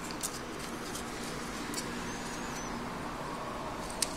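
Faint clicks and light handling noise as fingers work a small circuit board and its ribbon cable free inside an opened PS3 Slim Blu-ray drive, with a few sharper clicks near the end. Underneath is a low steady hum, and a faint high squeak comes a little over two seconds in.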